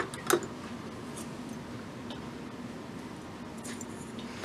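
Sunkko 709AD spot welder firing a weld pulse through a copper and nickel strip sandwich: a sharp snap about a third of a second in, right after another at the very start. Then faint crinkling of thin copper foil being handled, over a steady low hum.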